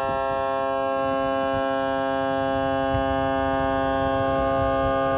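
The power trim-and-tilt motor of a Suzuki 200 hp four-stroke outboard runs with a steady electric hum at its slow trim speed, raising the engine through the trim range.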